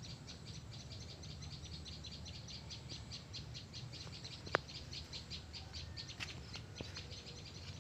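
Rapid, even, high-pitched chirping, about six chirps a second, keeping a steady rhythm, with a single sharp click about four and a half seconds in.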